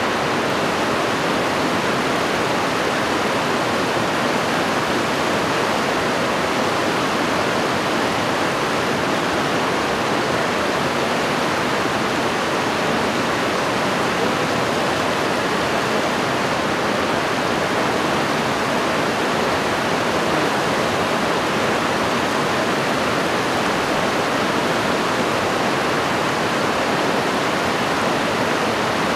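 Fast mountain stream rushing over rocks: a steady, unbroken noise of white water.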